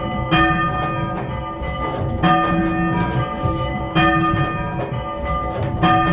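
The three church bells of a small ring, cast by Thomas Mears II of London in 1824, rung full-circle in English change-ringing style. They strike one after another in a steady repeating sequence, with the strongest strikes about every two seconds, each ringing on under the next.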